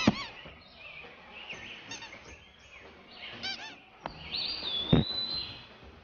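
Cartoon sound of small birds chirping and squawking in short, squeaky bursts, with a sharper, louder sound about five seconds in.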